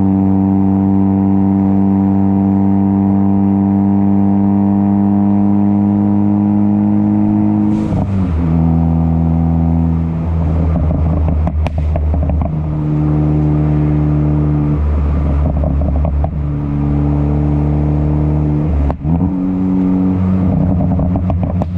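Ford Focus ST engine through a catless downpipe and muffler-deleted exhaust, holding a steady, slowly rising engine speed. About eight seconds in the revs drop with a sharp crack. After that the engine speed steps up and down, with loud pops and crackles from the crackle tune scattered through the rest.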